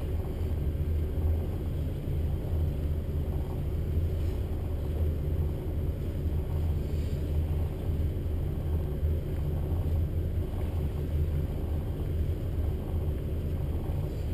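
Cabin cruiser's engines idling: a steady, even low rumble.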